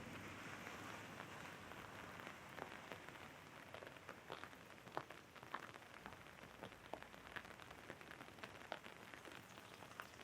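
Raindrops hitting an umbrella held overhead: scattered, irregular taps over a soft, steady hiss of rain. A fading rush of passing traffic sits under it in the first few seconds.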